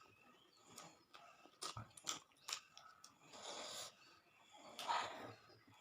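Close-miked eating: chewing and small wet mouth clicks, with two noisy breaths a second or so apart near the end, drawn against the heat of a hot green chilli.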